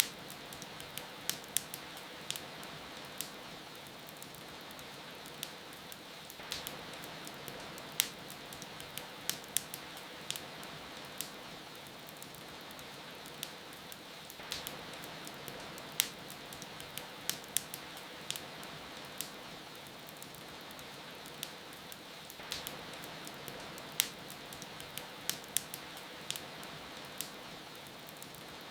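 Wood fire crackling, with frequent sharp, irregular pops over a steady hiss of rain.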